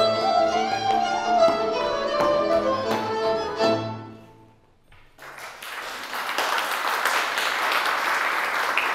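Fiddle-led folk dance music, rhythmic, that fades out about four seconds in. After a brief near-silent gap, audience applause starts and keeps up.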